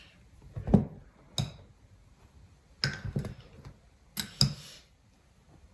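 Metal spoon knocking and clinking against a glass jar and a metal bowl while scooping cornflour: about six separate sharp taps, a couple of them in quick pairs, some with a short ring.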